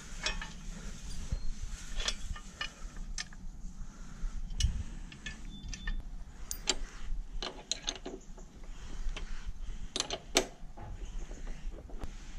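Irregular metallic clicks and knocks of hand tools and bolts while a pannier rail is fitted to a motorcycle frame, with a couple of louder knocks about ten seconds in.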